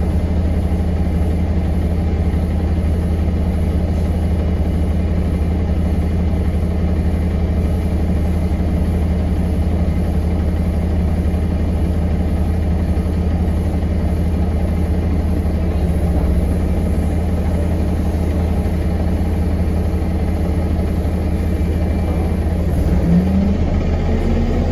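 Diesel engine of an Alexander Dennis Enviro 200MMC single-deck bus, heard from inside the passenger saloon, idling with a steady low hum. Near the end the pitch starts to rise as the engine picks up to accelerate.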